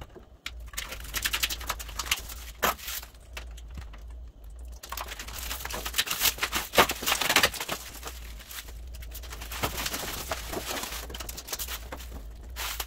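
Blue protective plastic film being peeled off a stainless steel range hood, crackling and crinkling as it pulls away and bunches up in the hand. It comes in irregular spells with short pauses between them.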